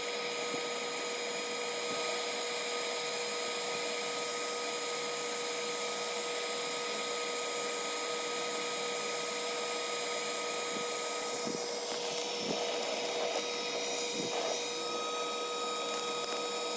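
Electric heat-gun charcoal lighter running steadily, its fan blowing hot air into lump charcoal, with a constant motor whine over the blower noise. A few faint knocks come in the second half.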